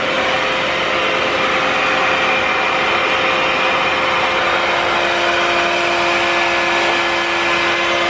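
Revair reverse hair dryer running at level 3, its suction fan drawing a section of wet curly hair into the wand: a steady rush of air with a steady whine over it. A lower hum joins about five seconds in.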